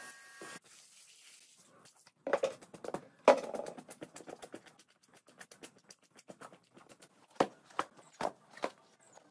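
A pressure-washer spray hisses for half a second and cuts off. Then come scattered wet slaps, thumps and clicks of rubber boots and a soaked rug being handled and unrolled on a wet concrete floor, the loudest about three seconds in and a few more near the end.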